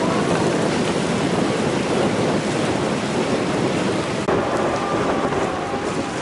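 Steady, loud rush of wind buffeting the microphone over choppy, breaking sea water.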